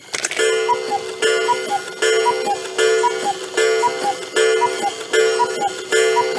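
Old mobile phone ringtone: a short tuneful phrase repeating about every 0.8 seconds, each with a quick two-note blip, high then lower.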